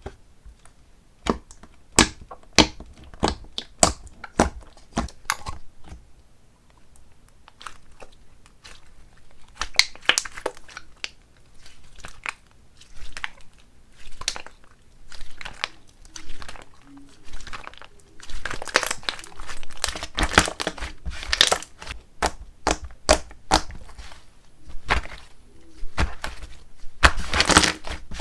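Slime being squeezed, stretched and pressed by hand, giving irregular crackling clicks and pops that come thickest about two-thirds of the way through and again near the end.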